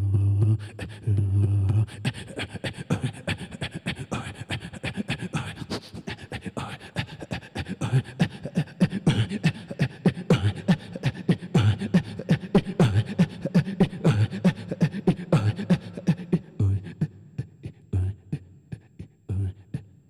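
Solo vocal piece built from breaths into a microphone: two short low hums, then a fast rhythmic run of breath puffs and mouth clicks in a beatboxing style. Near the end it thins to single low thumps about a second and a half apart.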